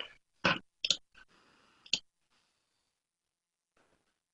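A few quiet, short clicks, about four within the first two seconds, of the kind made by computer mouse or keyboard clicks at the microphone.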